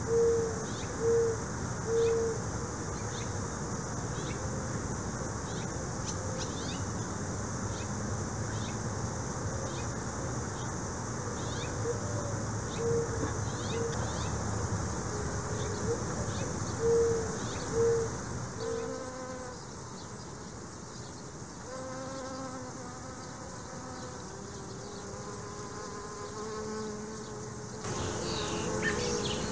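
Summer garden ambience: insects buzzing steadily, and a bird giving short low hooting calls in groups of three, near the start and again around the middle.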